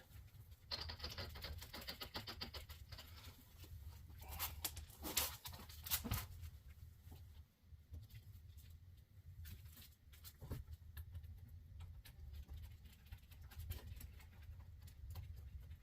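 Hand tools fastening the tie-rod end nut at a car's front hub: a couple of seconds of fast light ticking, then a few scattered metallic knocks and clinks over a faint low hum.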